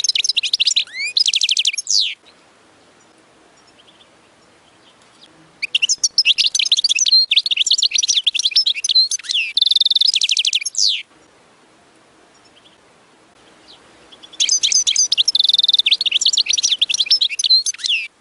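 European goldfinch singing: three bursts of rapid twittering song with quick trills, separated by pauses of a few seconds.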